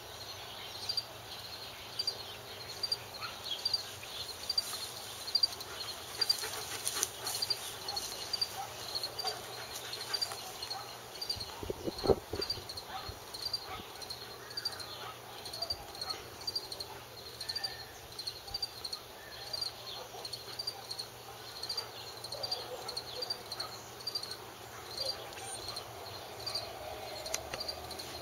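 Insects chirping in a steady rhythm, about one and a half high chirps a second, with a dog panting now and then.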